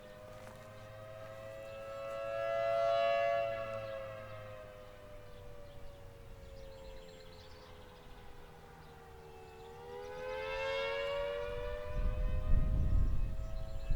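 Federal Signal Thunderbolt 1000T warning siren sounding the attack signal with its blower busted and not running. Its two-note tone slowly rises, sinks and rises again, growing loudest about three seconds in and again around eleven seconds as the rotating horn sweeps past. A low rumbling noise joins near the end.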